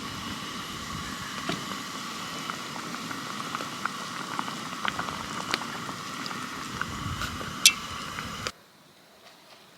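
Food bubbling and sizzling as it cooks, a steady hiss with scattered small pops. A sharper pop comes near the end, and the sound cuts off abruptly about eight and a half seconds in.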